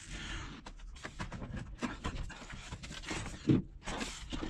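Scattered rustles and light knocks as a solar panel and a rough wooden beam are handled, with a brief vocal sound, a grunt or breath, about three and a half seconds in.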